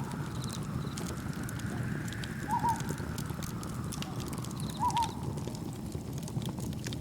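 Layered nature ambience: campfire wood crackling in sharp scattered pops over a steady low rushing of wind and gentle waves. A short double chirp sounds twice, about every two and a half seconds, and a faint whistling tone slowly rises and falls.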